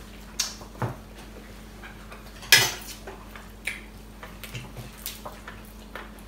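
Cutlery clinking and scraping on plates during a meal: scattered sharp clinks, the loudest about two and a half seconds in.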